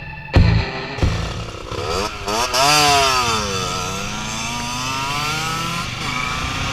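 Aprilia RX 50's two-stroke 50cc engine revving: the pitch jumps up sharply about two seconds in, drops back, then climbs slowly. A last beat of rock music is heard at the very start.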